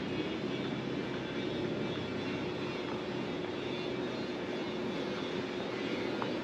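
Steady drone of distant engine noise with a low, even hum running through it.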